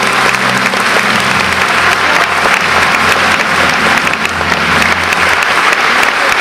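Theatre audience applauding, many hands clapping in a dense, steady patter.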